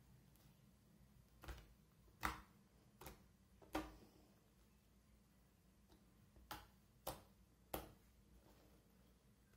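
Slime being squeezed and pressed, giving seven short, sharp pops and clicks, in two groups: four in the first half and three near the end.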